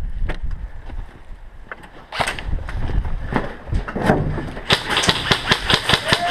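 Scattered knocks and gear rustle as a player moves, then, about three-quarters of the way in, a fast, even run of sharp snaps, about five a second, typical of airsoft rifles firing.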